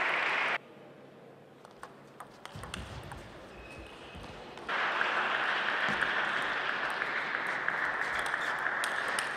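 Arena crowd applauding, cut off abruptly about half a second in. A quieter stretch follows with the light clicks of a table tennis ball on bats and table. Applause starts again suddenly about halfway through.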